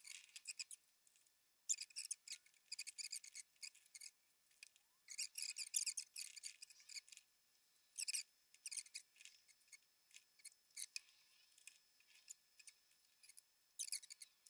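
Quiet scratchy rustling and scraping of cap fabric and mesh against a metal hat-steaming crown form, in several short bursts as the caps are handled, fitted on and pulled off.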